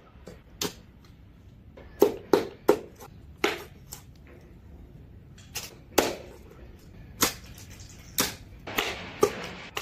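A kitchen knife chopping through a large red fish's bones on a wooden chopping board: about a dozen sharp chops at an uneven pace, several in quick succession near the end. The knife is small for hacking through bones of a fish this size.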